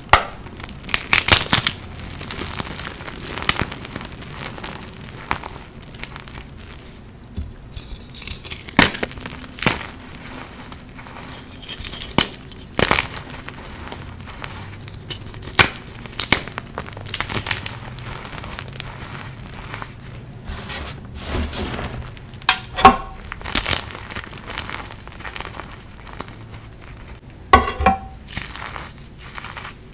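Blocks of dyed gym chalk being crushed and crumbled by hand into loose powder: irregular dry crunches and crackles, with softer powdery rubbing between them and a few sharper cracks in the later part.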